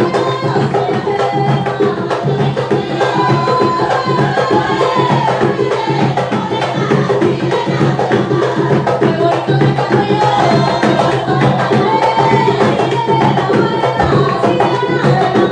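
Panamanian tamborito: hand drums beating a fast, steady rhythm, with a voice singing over them.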